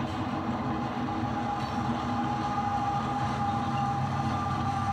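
HO-scale CSX SD70MAC model diesel locomotives running along the track, a steady hum with a faint high whine.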